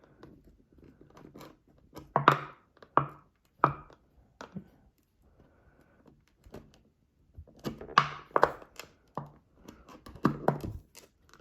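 Multitool package-opener blade cutting and prying at a hard plastic bottle to break a piece out: a series of sharp plastic clicks and cracks, in two clusters, a few seconds apart.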